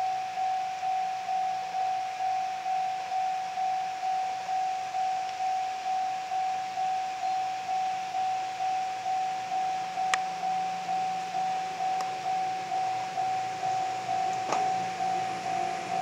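Electronic warning bell of a Japanese railway level crossing ringing steadily, one high tone repeating about twice a second. A few sharp clicks come through about two-thirds of the way in.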